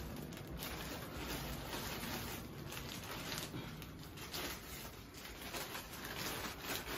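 Clear plastic garment bag rustling and crinkling in irregular bursts as it is handled and a jacket is pulled out of it.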